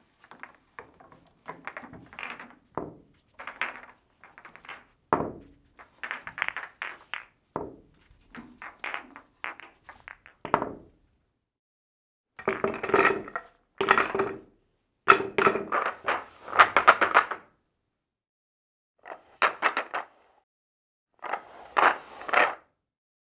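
Billiard balls clicking and knocking against each other, in a string of separate takes with short silent gaps between them. Scattered single clicks come first; the densest and loudest clusters of collisions fall around the middle of the run.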